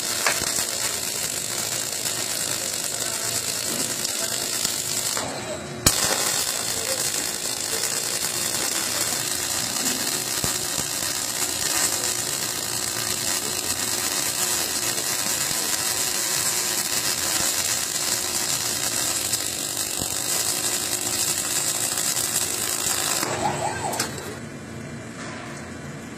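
Arc of a robotic welding torch crackling steadily as it welds lettering onto a steel plate. The arc breaks briefly and restarts with a sharp crack about five seconds in, and it cuts out near the end.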